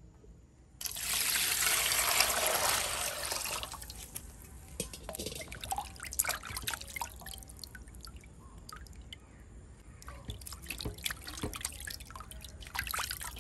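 Water rushes into a large metal bowl for about three seconds, starting about a second in. After that come irregular splashes and drips as hands wash whole pink perch in the water.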